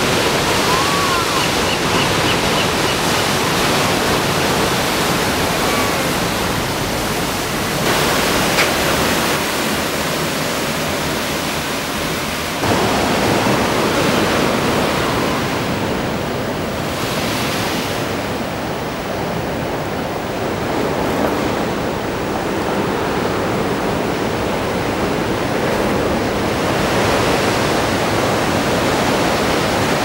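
Big ocean waves breaking against a concrete seawall: a continuous loud wash of surf that swells and eases, turning duller for several seconds past the middle.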